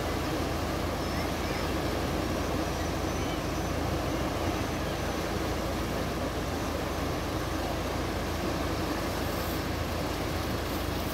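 The Bono tidal bore of the Kampar River surging past the bank, its turbulent, churning water making a steady rushing rumble with no let-up.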